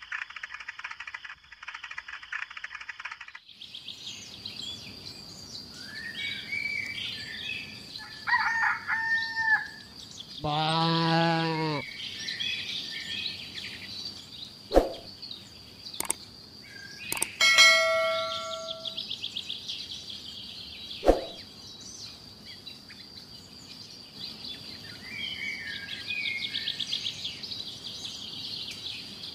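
Outdoor ambience of birds chirping over a steady high insect trill. About ten seconds in there is one loud, drawn-out animal call, and a few sharp clicks follow later.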